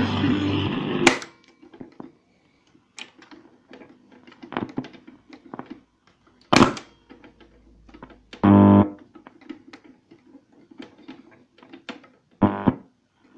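Stern-Radio Sonneberg 'Weimar' valve radio being switched and tuned. Music cuts off with a loud click of a piano-key band button about a second in, then faint crackle and brief snatches of stations as the dial is turned, with another sharp key click about midway.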